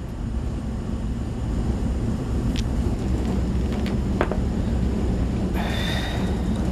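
Steady low machinery rumble with a few sharp clicks. A high, steady whine joins it about a second before the end.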